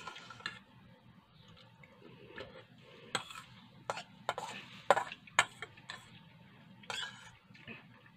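Metal spoon scraping and clinking against a stainless steel bowl as rice in broth is stirred and scooped, with a run of sharp clinks in the middle.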